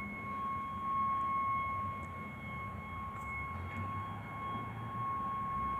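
A really loud ringing tone held steady at one high pitch without a break, like a horn, from an unidentified source.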